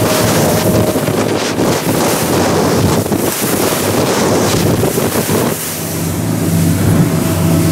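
Center-console boat running fast through chop: wind buffeting the microphone and spray hissing and crashing along the hull. About five and a half seconds in the rushing eases and a steady low hum comes through.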